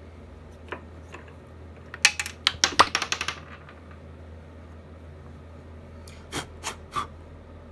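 A quick run of sharp clicks and knocks about two seconds in, then three single clicks near the end, as metal pen-kit parts are pressed together between the plywood pads of a lathe. A low steady hum lies underneath.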